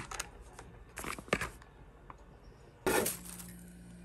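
A few short rustles and clatters of objects being handled, the loudest about three seconds in, after which a steady low hum starts.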